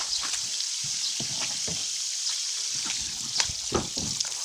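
Garden hose spraying water on a car, a steady hiss with scattered spatters and a few louder splashes near the end.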